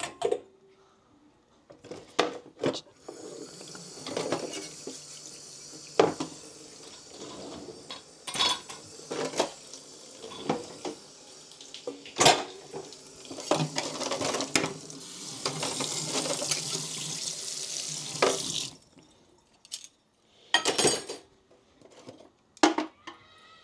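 Kitchen tap running into the sink while dishes are rinsed, with pots, plates and cutlery clattering against each other. The running water shuts off about 18 seconds in, and a few more clinks follow.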